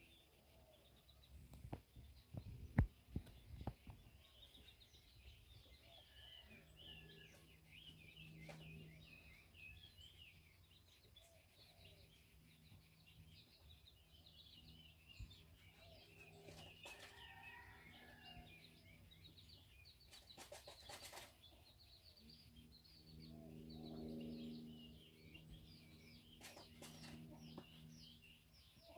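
Faint, near-quiet background of small birds chirping, with a hen's soft low crooning while being stroked: once about a quarter of the way in and again later on. A few soft handling bumps come in the first few seconds.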